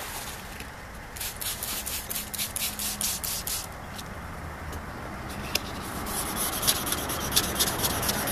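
Wet sandpaper rubbed back and forth by hand on a plastic headlight lens, in quick strokes of about five a second, in two spells. It is the wet-sanding stage of restoring an oxidised, yellowed headlight.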